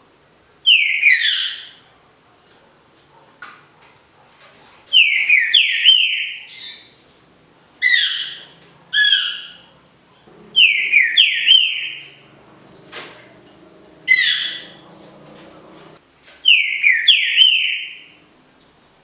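Green-winged saltator (trinca-ferro) singing its 'canto liso Paraná' song, a smooth song without the 'boi' ending: a series of about seven short, clear whistled phrases with pauses of about a second between them.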